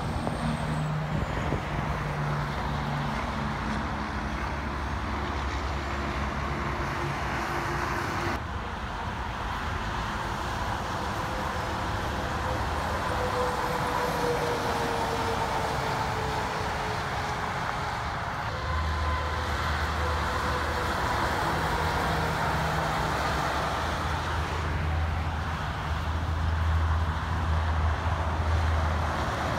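Steady interstate highway traffic: tyre noise and the diesel engines of passing heavy trucks. A pitch slowly falls in the middle as a vehicle goes by, and a low diesel engine sound grows stronger near the end as a dump truck passes.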